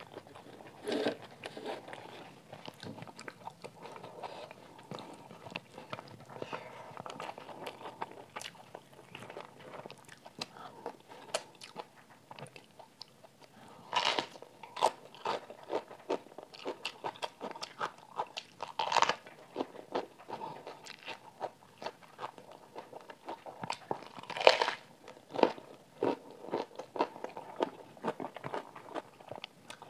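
Close-miked chewing and biting of a rice-and-curry meal eaten by hand, with wet mouth clicks throughout. Several louder crunching bites come in the second half, the first as a big steamed cabbage leaf is bitten into.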